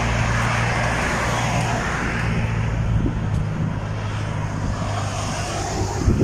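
Road traffic: a steady rush of passing cars with a low engine hum, loudest in the first couple of seconds.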